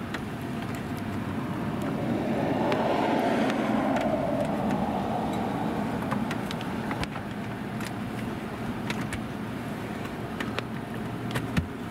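A road vehicle passing by, its noise swelling and then fading over a few seconds and loudest about three seconds in, with light scattered ticks.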